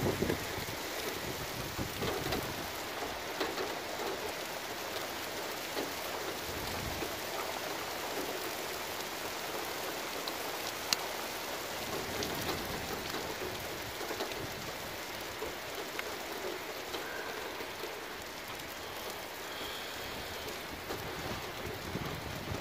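Heavy rain pouring steadily in a windstorm, with a few low gusts buffeting the microphone, the strongest near the start, and a single sharp click about halfway through.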